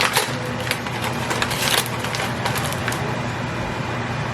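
Crunching and scraping of marshmallow-coated popcorn being stirred and scooped with a spoon: a few irregular crackles, the busiest a little past one and a half seconds in, over a steady low hum.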